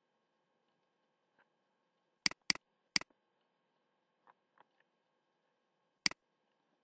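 Computer mouse button clicks: two quick clicks about two seconds in, a third half a second later, and one more near the end, with a few faint ticks between.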